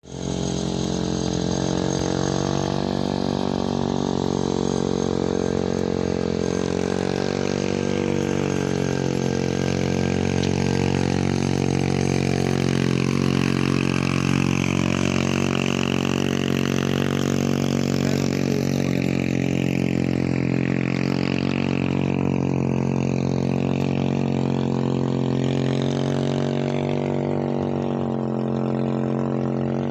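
Motorcycle engine running at a steady speed, its pitch shifting slightly now and then.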